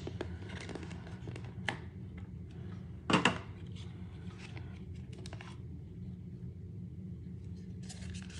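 Hands handling a small box of thick trading cards, sliding the stack of cards out: soft scrapes and taps, the loudest a brief scrape about three seconds in, over a steady low hum.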